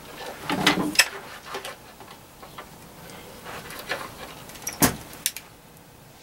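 Tools being handled on a wooden workbench as a pistol-grip soldering gun is picked up: a short rattle of knocks about half a second in, scattered light clicks, then a sharp knock and a click near the end.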